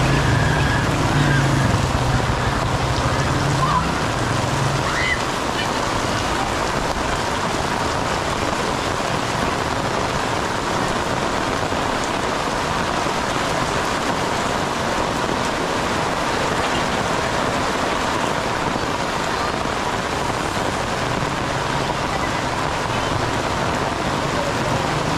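Heavy rain pouring onto a street, a steady hiss of water on pavement and roofs. A low hum sits under it for the first few seconds.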